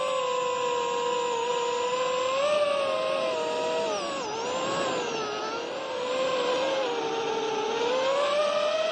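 Radio-controlled model plane's motor and propeller whining, heard from a camera on board with air rushing past. The pitch sags about four seconds in and climbs again near the end as the throttle changes through the manoeuvres.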